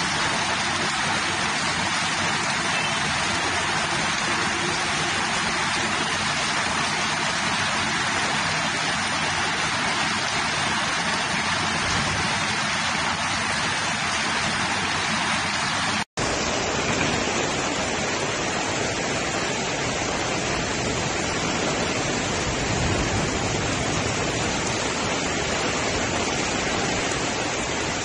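Steady hiss of heavy rain and rushing floodwater. It breaks off briefly about sixteen seconds in and then carries on just as evenly.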